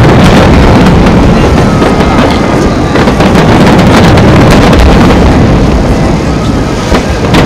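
Aerial firework shells bursting one after another, a loud, dense, continuous rumble of booms with sharp cracks and crackle through it.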